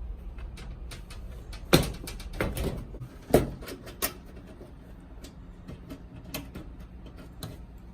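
Knocks and clicks of a dryer's panel and parts being handled and fitted back together during reassembly: a few sharp knocks in the first half, the loudest about two seconds in, then only faint ticks.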